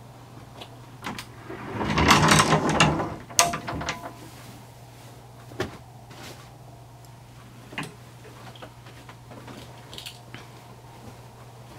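A folding closet door is pulled open, rattling along its track for about a second, and stops with a sharp click. Small scattered clicks and knocks follow over a steady low hum.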